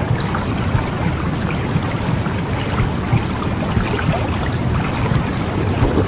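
Womb sound for soothing babies: a steady, low, rushing whoosh like blood flow heard inside the uterus, with faint scattered crackles.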